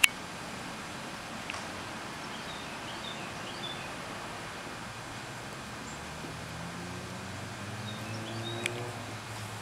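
Garden ambience: a steady outdoor hiss with a few faint, high small-bird chirps. About six seconds in, a low droning hum comes in and fades near the end.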